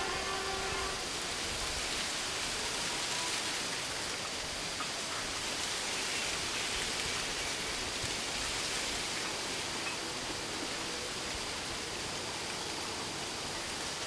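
Steady, even rushing noise of open-air ambience, with a faint high steady tone running through it. A short pitched sound is heard right at the start.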